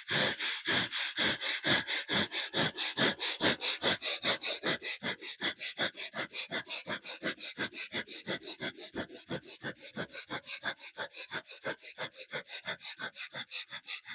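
Bhastrika pranayama bellows breathing through the left nostril alone, the right one held shut: rapid, forceful, equal inhales and exhales through the nose, about four even puffs a second, growing a little weaker near the end.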